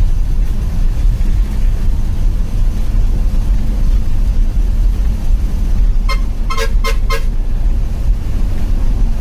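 Bus engine running with a steady low drone, heard from the driver's cabin while driving. About six seconds in, a horn toots four times in quick succession.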